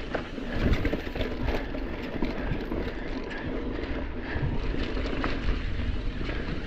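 Mountain bike rolling fast down a dirt trail: tyres rumbling over the ground and the bike rattling, with many small knocks and clicks as it hits bumps.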